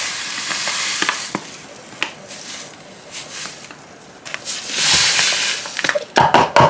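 Granulated sugar pouring from a bag into a plastic measuring cup with a grainy hiss, then a few light taps. About five seconds in, the cup is tipped into a plastic mixing bowl and the sugar slides out with a louder hiss, followed by several quick knocks of the cup against the bowl.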